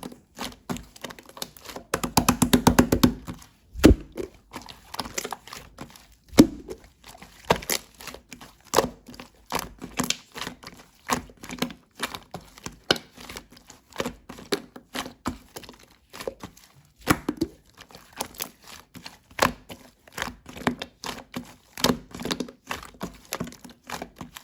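Mixed slime being pressed, squished and folded by hand, giving irregular sticky clicks and pops, with a quick run of crackling pops about two seconds in.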